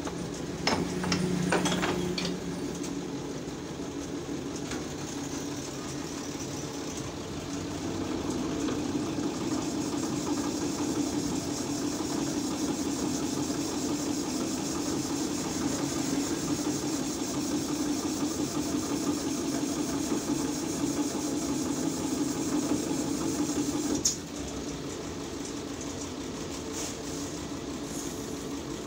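A few sharp metal clicks as a steel mould is handled, then a steady motor hum that starts about eight seconds in and cuts off suddenly near the end.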